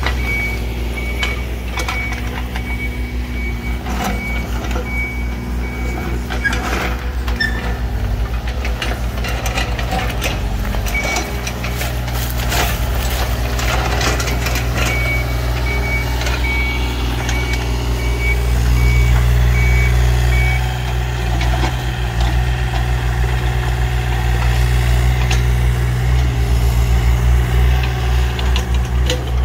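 Compact excavator and skid-steer engines running steadily, rising for a few seconds past the middle, with a backup alarm beeping in two long runs. In between come clanks and scrapes of a steel bucket working against rock.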